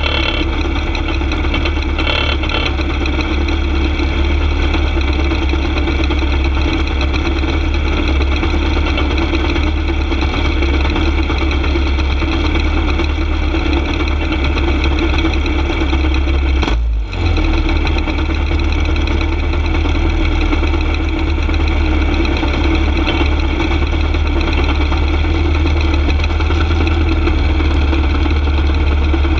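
Small go-kart engine idling steadily with the kart at a standstill, its sound briefly dipping once about halfway through.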